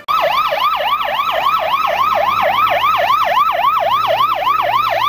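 Electronic siren sounding in a fast yelp, its pitch sweeping up and down about four times a second; it starts suddenly.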